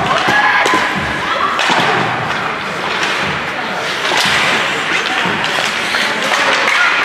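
Sounds of youth ice hockey play in an indoor rink: a few sharp knocks and thuds of sticks, puck and players against the boards, over a steady din, with voices calling out.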